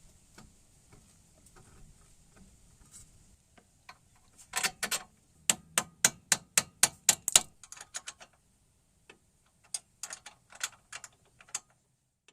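Hand-tool work on the car's suspension: a run of sharp clicks and knocks, about three a second, starting a few seconds in, then a second, shorter run near the end.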